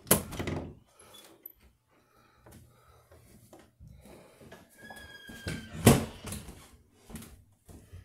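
A door being handled: a knock as it opens at the start, a squeak lasting about a second, then a sharp bang as it shuts about six seconds in.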